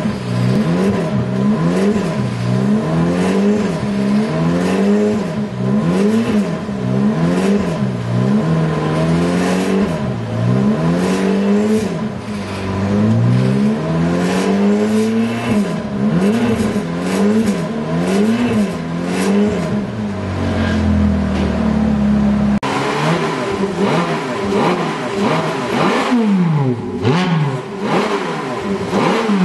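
Ferrari 430 Spider's V8 being revved again and again, its pitch rising and falling with each blip, with a held higher-rev stretch shortly before an abrupt change about two-thirds of the way in.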